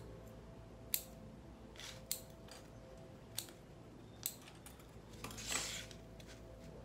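Scissors snipping through small pitanga roots as excess root is trimmed away: a few sharp snips about a second apart, the first the loudest, then a short rustle near the end.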